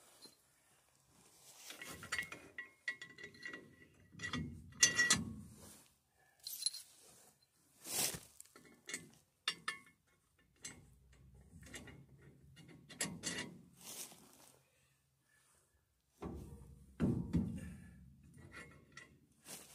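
Metal brake parts and hand tools clinking and knocking while a drum-brake backing plate is fitted to a truck's rear axle. Irregular sharp clicks and taps, a few with a brief ringing, with scuffing handling noise between them.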